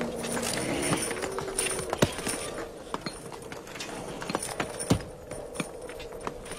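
Irregular sharp knocks of a pickaxe and other tools striking stone, spaced unevenly about a second apart.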